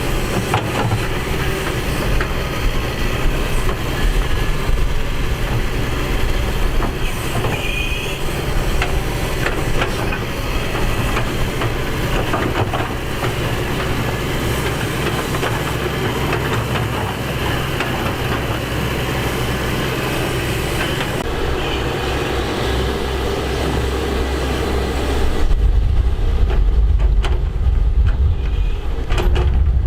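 Excavator working: a steady diesel engine hum with scattered metallic clanks and a brief squeal about eight seconds in, typical of steel tracks and bucket linkage. Near the end the sound turns to a deeper, louder rumble.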